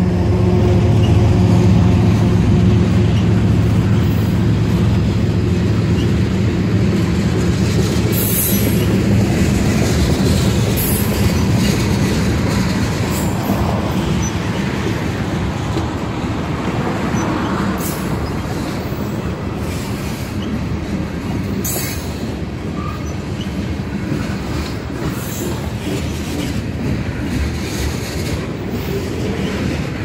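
Freight train cars rolling past at close range: covered hoppers, tank cars and autoracks, with an even rolling rumble and occasional sharp clicks and squeals from the wheels on the rail. The steady hum of the locomotive that has just passed dies away over the first ten seconds or so.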